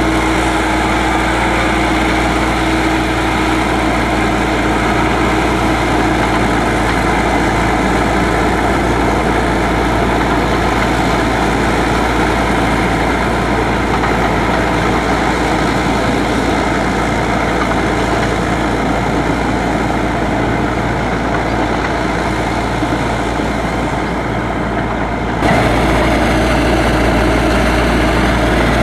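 Crawler tractor engine running steadily as the tractor tills a flooded rice paddy. The sound changes abruptly and gets a little louder about 25 seconds in.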